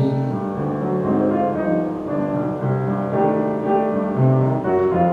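Piano playing an instrumental interlude of a Christmas song: chords over held low bass notes, with no singing.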